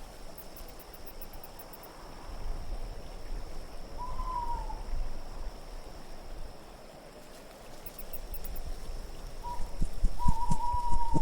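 Steady wind with an owl hooting: once about four seconds in and again near the end, each call a held note that drops slightly in pitch. A few soft low knocks come near the end.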